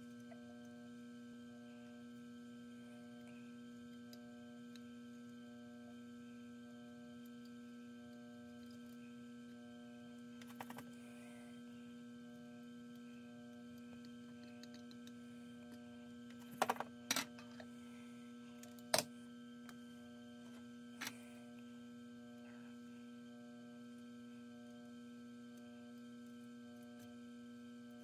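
Steady electrical hum with a low, even pitch, broken by a few short sharp clicks and taps scattered through the middle, the loudest a little past halfway.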